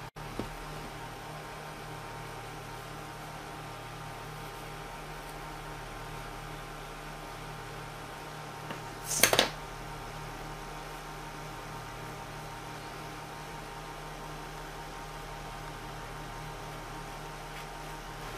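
Steady electrical mains hum, a low buzz with a ladder of even overtones. About halfway through there is one brief, loud noise burst.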